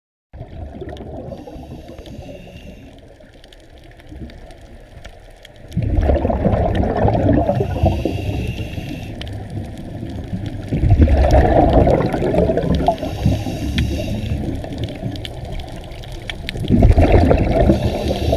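Scuba regulator breathing heard underwater: three loud surges of exhaled bubbles rushing out about every five seconds, with a fainter hiss between them.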